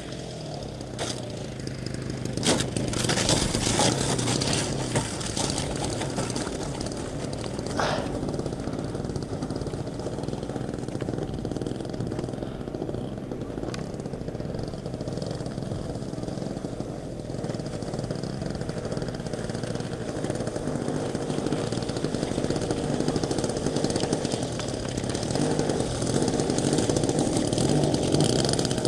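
Motor of a radio-controlled model Cessna 152 running steadily, getting louder about two seconds in and again near the end. A few sharp clicks are heard in the first eight seconds.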